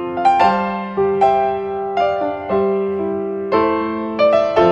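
Background piano music: single notes and chords struck one after another and left to ring out.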